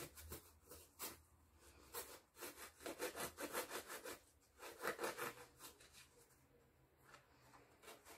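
Knife sawing through a fried fricassé bread roll to slit it open: faint, quick rasping strokes, busiest in the middle.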